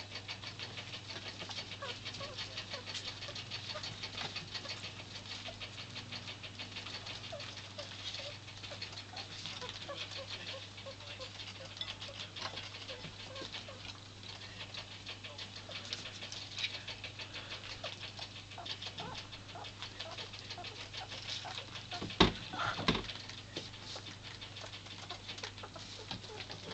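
Pet rats eating peas fished out of a bowl of water: a steady run of fast, small clicks and crunches from their chewing. Two louder knocks come about twenty-two seconds in.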